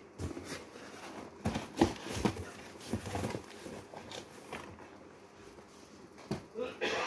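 Handling noise as cardboard stock boxes are moved on metal shelving and the phone is jostled against clothing: irregular soft knocks, thumps and rustling, with the sharpest knock about two seconds in.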